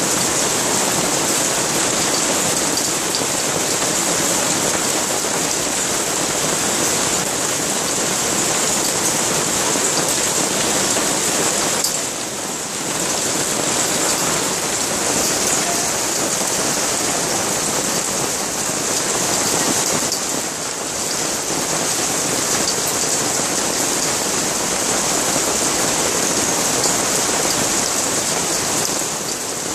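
Hail and a heavy downpour pelting paving stones, a dense steady hiss of impacts that dips briefly twice.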